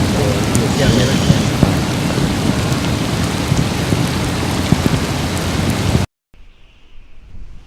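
Heavy storm noise: rain and wind rushing loudly and steadily. It cuts off abruptly about six seconds in to a much quieter scene.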